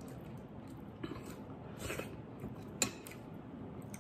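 Quiet sounds of a man eating rice porridge (arroz caldo) from a spoon: chewing and small mouth noises, with one sharp click about three seconds in.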